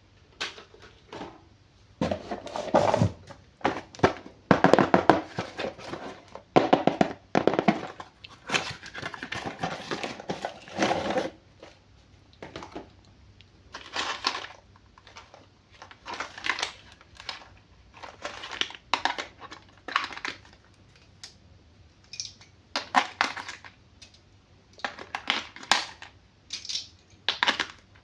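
Packaging crinkling and rustling in irregular bursts as toys are unboxed and handled, with a few soft thunks.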